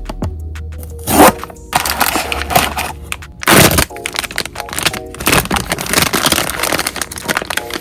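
Blind box packaging being handled and torn open: irregular crackling and crinkling, with two sharp louder tears, about a second in and about three and a half seconds in. Soft background music plays underneath.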